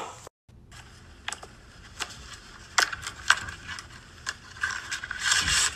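A clear plastic purse being handled: scattered light clicks and taps of the plastic, with a longer rustle near the end.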